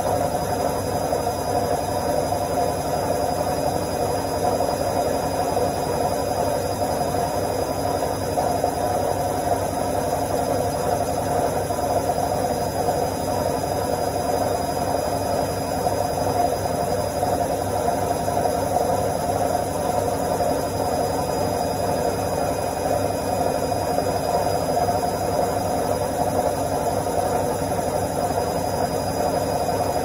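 Front-loading washing machine running its spin cycle, a steady, even mechanical whir from the spinning drum and motor.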